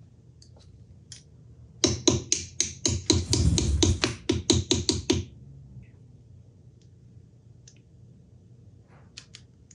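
Small hammer tapping a steel dowel pin into a steel part of a clamp knurler: a quick run of sharp metallic taps, about five a second for some three seconds, followed by a couple of light clicks near the end.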